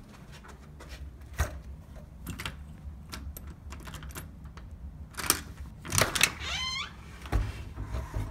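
Scattered clicks, knocks and footfalls as a door is opened by its brass knob, with the loudest knocks a little past the middle. Just after them comes a short squeak that slides up and down in pitch.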